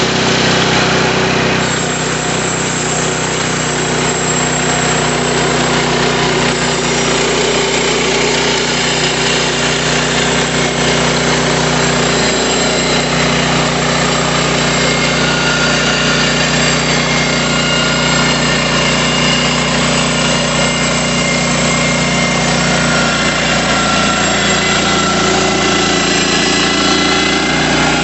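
Woodland Mills HM126 portable band sawmill running steadily, its engine under load while the band blade saws through wood, a constant engine drone with a hissing saw noise over it. The blade is a well-used Wood-Mizer band that is dull but still cutting.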